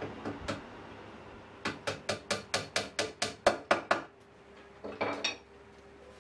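A quick run of about a dozen hammer blows, roughly four to five a second, with a few lighter knocks before and after.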